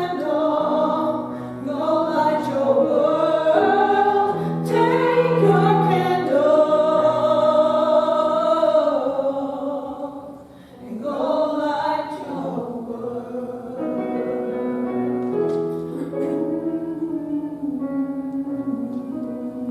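Worship song sung by two women's voices with instrumental accompaniment. The singing stops about two thirds through, and the accompaniment plays on softly, fading near the end.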